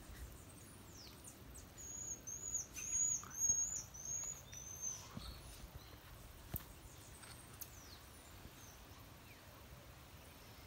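A run of about seven short, high-pitched chirping calls in quick succession, starting about two seconds in, with a few thin descending whistles before and after and a single sharp click.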